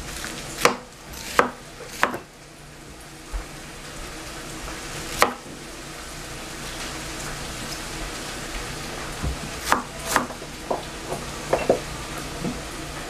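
Chef's knife chopping cabbage on a plastic cutting board. Strikes come about 0.7 s apart in the first two seconds, a lone one around five seconds in, then a quicker run of strikes near the end, over a steady hiss.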